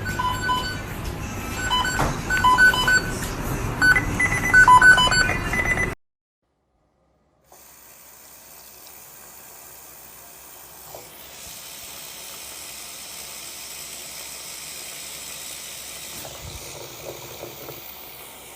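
Music with short, bright beeping notes for about six seconds, then a sudden cut. After a second or so of silence comes a quieter, steady rushing hiss.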